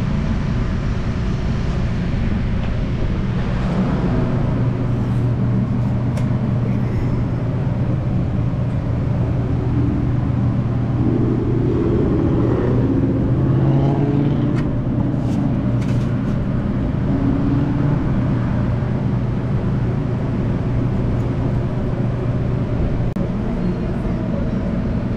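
An engine runs steadily, giving a continuous low hum.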